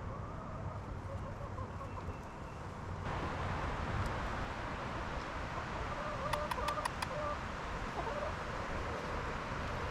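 Chickens clucking over a steady outdoor background hiss, which gets louder about three seconds in. Near the middle there is a quick run of about five clicks.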